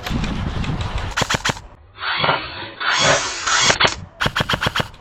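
Airsoft gun, likely the Arcturus PP-19, firing two short full-auto bursts of rapid, evenly spaced shots, about a second in and again about four seconds in.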